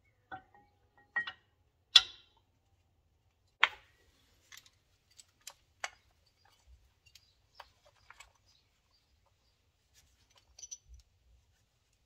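Sharp metallic clicks and knocks of new Textar brake pads being seated into the rear brake caliper carrier and its pad clips. There are two louder knocks, about two seconds in and a second and a half later, then lighter scattered ticks.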